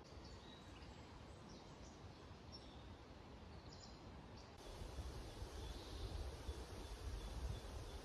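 Faint outdoor ambience with a few short, high bird chirps. About halfway through, a louder, steady low rumble sets in.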